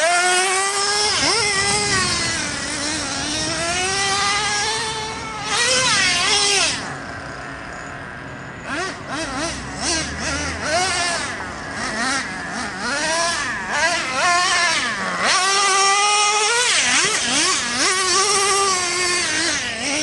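Traxxas Revo 3.3 RC truck's two-stroke nitro engine revving up and down in a high, wavering whine as the truck is driven over dirt jumps. It eases off for a couple of seconds about seven seconds in, then comes back in short blips before holding high revs again.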